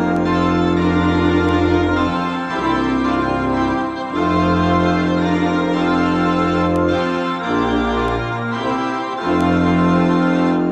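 Electronic home organ playing a hymn: full sustained chords over a held bass note, with the chords and bass changing every couple of seconds.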